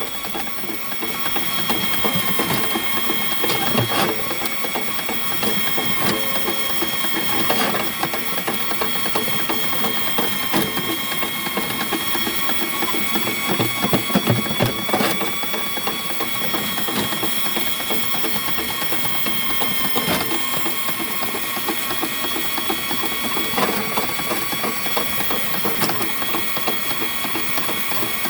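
Heavy-duty power drain snake running steadily: a motor whine with the turning cable rattling, and occasional clicks and knocks, as a double root cutter is worked down a root-infiltrated sewer main.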